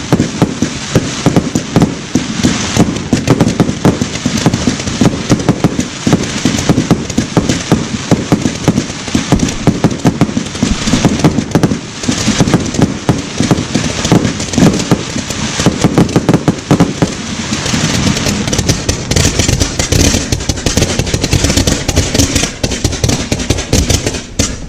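Display fireworks firing a dense, continuous barrage of bangs and crackling bursts, many a second, breaking off abruptly just before the end.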